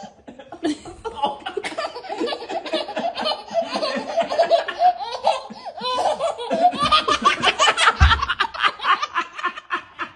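A baby laughing hard in quick repeated bursts, climbing into higher-pitched squealing laughter about seven seconds in, with a dull thump about eight seconds in.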